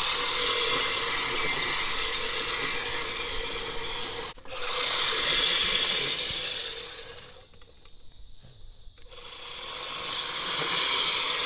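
Manual push reel mower being pushed fast over grass: the spinning reel blades whir and rasp against the bed knife as they clip the grass. It fades to faint for a couple of seconds after the middle, then comes back loud near the end.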